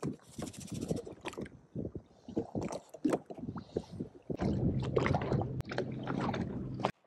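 Seawater sloshing and gurgling around a camera held underwater, with irregular knocks and splashes. A low steady hum joins a little past halfway, and the sound cuts off abruptly near the end.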